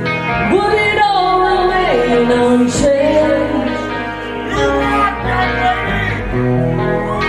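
Live rock music: a woman's voice singing a slow melody with long held and sliding notes, with a rock band playing electric guitar behind her.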